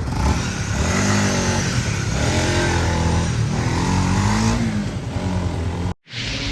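Honda CBR150 motorcycle engine revving as it rides, its pitch rising and falling several times, with a stretched timing chain, blamed for its earlier noise, now replaced. The sound cuts off abruptly near the end.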